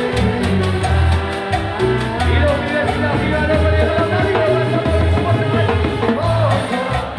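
Live band music with an upbeat Latin feel: a steady beat with a repeating bass line and a singing voice over it.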